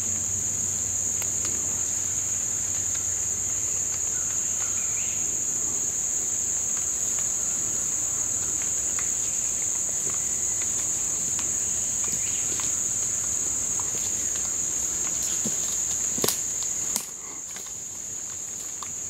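Steady, loud, high-pitched insect chorus buzzing without a break, with faint scattered rustles of footsteps in dry leaf litter. A sharp knock comes about sixteen seconds in, and the buzz drops away suddenly just after it.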